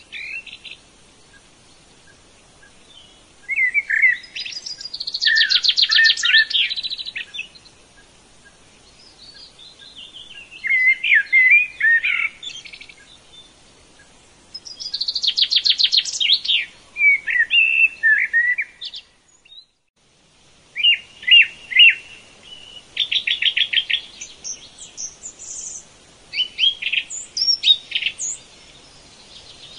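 A songbird singing in repeated phrases of quick chirps and fast trills, with pauses of a few seconds between phrases. The song cuts out completely for about a second a little under two-thirds of the way through, then resumes.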